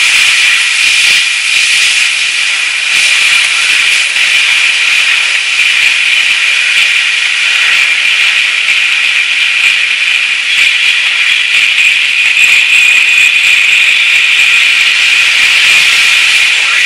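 Loud, steady static-like hiss from stacked digital distortion effects, with a thin high tone running through it.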